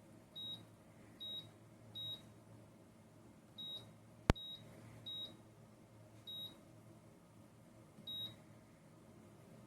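Control panel of a YougetTech evaporative humidifier beeping as its buttons are pressed: eight short, high beeps at uneven intervals, with one sharp click about four seconds in.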